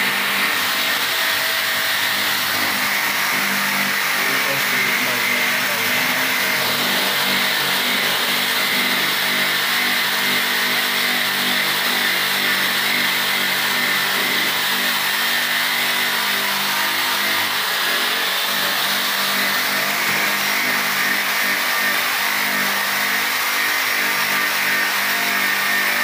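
A machine's motor running steadily with a constant hiss over it, its hum holding one pitch without letting up.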